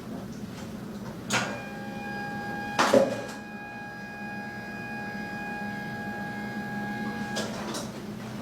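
Two sharp knocks, then a steady mechanical whine of one pitch for about six seconds that stops with a click near the end, typical of a small electric motor running.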